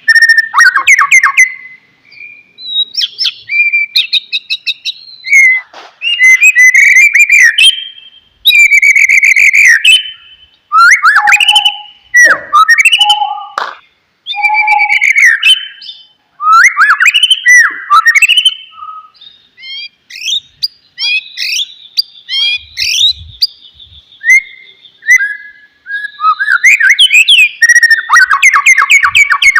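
White-rumped shama (murai batu) singing: a varied song of clear whistles, quick rising and falling pitch sweeps and harsh rattling chatters, delivered in phrases a second or two long with short gaps between them.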